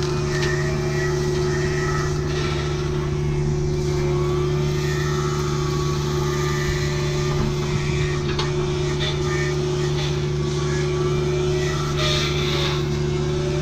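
Kubota U55-4 mini excavator's diesel engine and hydraulics running steadily, driving an MTL XC5 brush cutter head, with a steady hum throughout and a few brief sharp cracks about eight and twelve seconds in.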